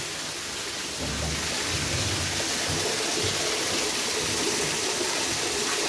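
Water pouring from a pipe into a concrete eel tank, a steady splashing rush.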